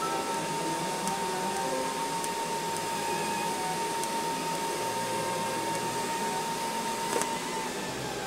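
TIG welding arc running steadily with a hiss and a thin high tone as filler rod is fed into a steel tube joint. The arc cuts off near the end.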